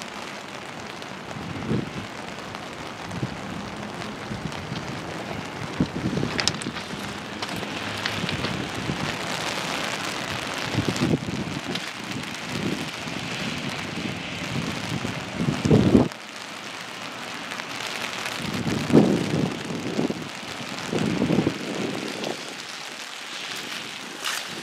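Steady hiss of rain and wind on the microphone, with irregular low buffeting thumps scattered through, the strongest about sixteen and nineteen seconds in.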